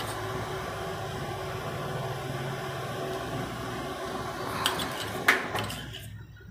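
Steady background hum and hiss, with two sharp clicks near the end from a steel spoon knocking while it spreads green chutney on a slice of bread; the hiss drops away just before the end.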